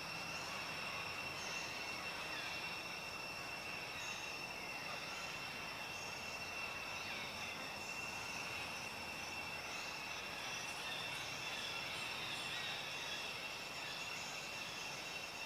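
A steady, high-pitched insect drone with an unbroken, unvarying pitch. Faint short chirps come and go over it.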